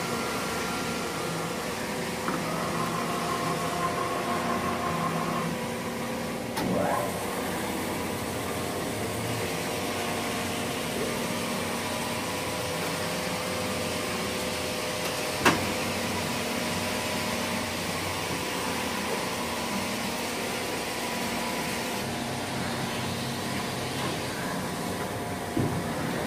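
Acer 2448AHD surface grinder running: a steady machine hum with several steady whining tones, and a single sharp click about fifteen seconds in.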